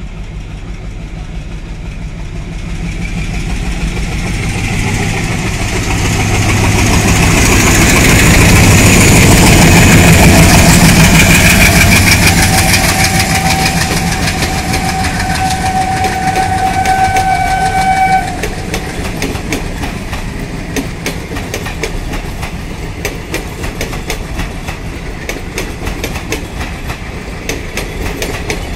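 WDM3A diesel-electric locomotive's ALCO 16-cylinder engine chugging, growing louder as it approaches and passes. A train horn sounds steadily for about five seconds and cuts off suddenly. The coaches then roll by with a regular clickety-clack over the rail joints.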